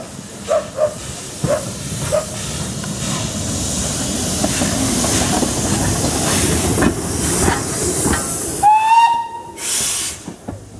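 Brighton Terrier 0-6-0 tank engine running slowly past at close range, its rumble and steam hiss building over several seconds. About nine seconds in comes a short whistle blast, slightly rising, then a brief loud rush of steam.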